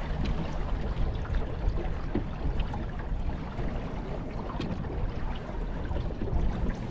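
Water lapping and gurgling along the hull of a small wooden sailboat under sail, with steady wind noise on the microphone.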